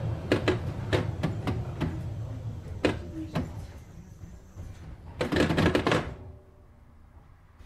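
Düwag GT6Z tram slowing to a halt: the low running rumble fades while a string of sharp knocks and clicks comes from the running gear, then about five seconds in a second-long burst of hiss and clatter as the doors are worked, followed by quiet standstill.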